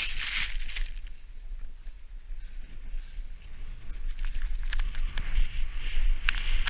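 Wind buffeting the camera's microphone while riding fast through deep powder snow, with the hiss of snow spray and sliding. A loud burst of hiss as snow spray covers the camera right at the start, and the hiss builds again in the second half with a few sharp clicks.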